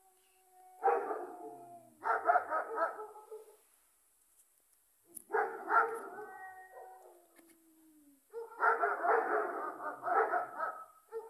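Dogs barking in three bouts of rapid barks: about a second in, again around six seconds, and again from about eight and a half seconds, with short quiet gaps between.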